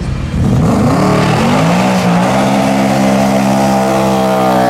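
A car engine revs up over the first second and a half, then holds a steady high pitch.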